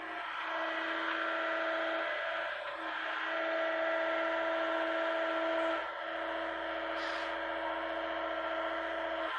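Hitachi mini excavator running, a steady engine-and-hydraulic whine that shifts slightly as the machine works.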